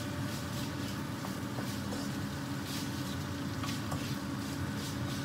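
Stir-fry of stink beans, shrimp and minced chicken sizzling in a non-stick wok, stirred and scraped with a wooden spatula in a run of short strokes, over a steady low hum.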